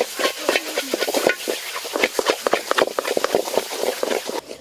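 Food frying in a pan while being stirred: a hissing sizzle with many quick scrapes and clacks of the utensil against the pan. It cuts off suddenly near the end.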